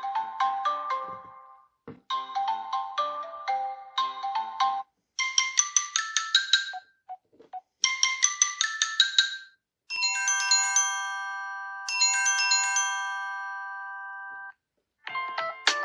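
Samsung Galaxy S7 edge ringtones and notification tones playing one after another through the phone's loudspeaker. A quick melody repeats first. Then a higher, brighter phrase sounds twice. Then a held chime chord sounds twice, each time ringing out and fading. Another tone begins near the end.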